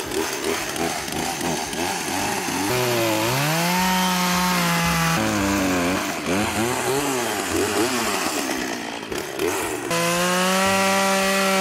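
Chainsaw cutting through a dead pine log. The motor's pitch rises about three seconds in and holds steady under load, dips and wavers in the middle, then holds steady again near the end.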